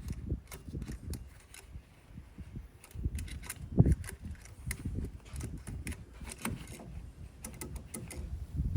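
Scattered metallic clicks and clinks of hand tools and engine parts being handled, with one louder knock about four seconds in, over an uneven low rumble.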